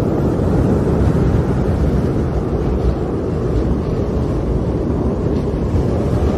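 Steady, loud low rush of storm wind in a snowstorm, with no distinct gusts or whistles.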